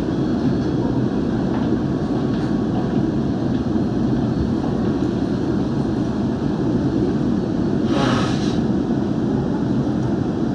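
Steady low hum and rumble inside a Bombardier Movia C951 driverless metro train standing in a tunnel, with a brief hiss about eight seconds in.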